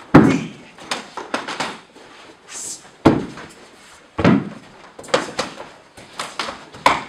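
Bodies being taken down onto padded floor mats during grappling practice: a run of heavy thuds with scuffling between them, the loudest just after the start and others about 3 and 4 seconds in.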